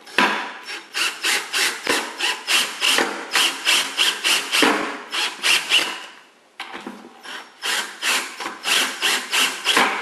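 Ryobi cordless drill driving screws through a plastic bucket wall into a wooden brace: a rapid, ragged grinding of about four or five strokes a second, in two runs with a short break about six seconds in.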